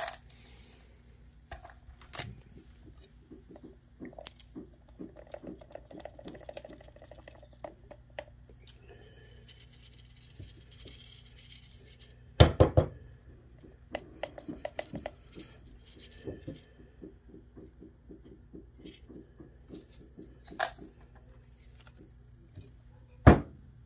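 Stainless mesh strainer being shaken and tapped to sift milled charcoal powder, with the marbles used as milling media rolling and clicking inside it. It makes a steady run of small clicks and taps, with two loud knocks, one about twelve seconds in and one near the end.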